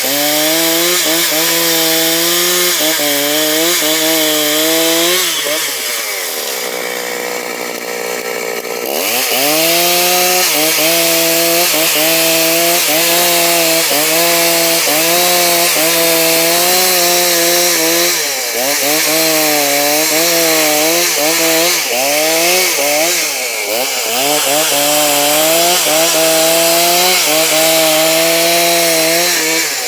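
Stihl chainsaw running hard while cutting lengthwise through a log to saw out planks, its engine pitch wavering up and down under load. For a few seconds about six seconds in the pitch drops away, then the saw picks up again.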